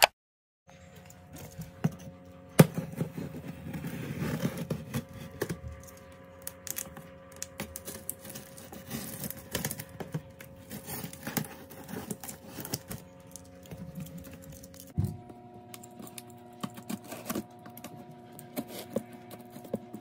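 Cardboard shipping box being handled and its packing tape cut with a pocket knife: scattered scrapes, taps and clicks. A steady low hum runs underneath and changes pitch about three-quarters of the way through.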